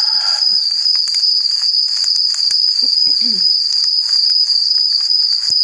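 A loud, steady high-pitched whine that never breaks, with a faint brief low sound about three seconds in and a single click near the end.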